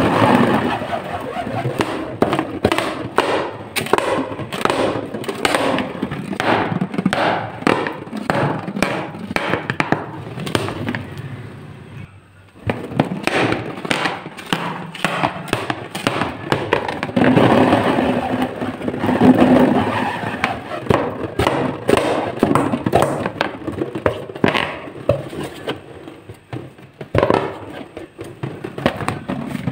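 Hands rubbing and squeezing latex balloons: a dense run of rubbery squeaks and scrapes, with a brief pause about twelve seconds in.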